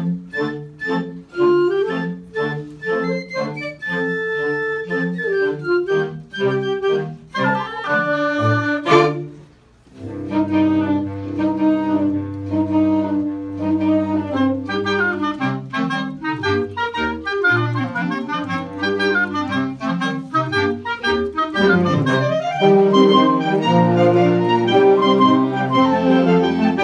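Woodwind choir of clarinets and other woodwinds playing a march in ensemble. The music breaks off briefly about nine seconds in, then the full group comes back in.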